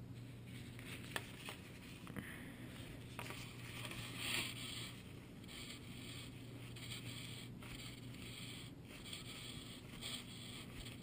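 Irregular rustling and rubbing of a bunched-up nitrile glove wiped over a carbon-fibre wing surface, smoothing wet epoxy on a freshly laid patch. A couple of light clicks come about a second in, over a steady low hum.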